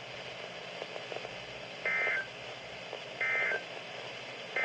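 Emergency Alert System SAME data tones from a weather radio: three short, identical bursts of warbling digital tones about a second apart, the third at the very end. The short triple burst is the end-of-message code that closes the special marine warning.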